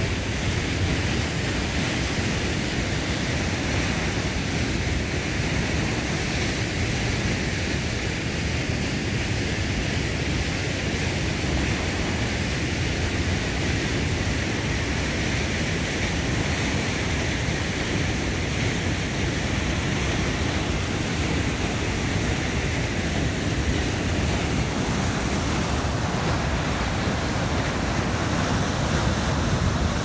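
Waterfall in heavy flood flow, a steady, unbroken rushing roar of water plunging over a rock lip.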